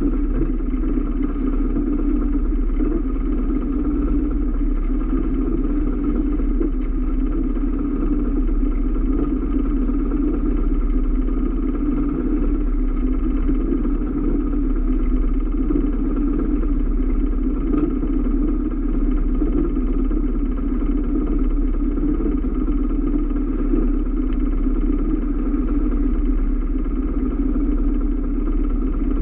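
Boat engine running steadily, a constant unbroken drone.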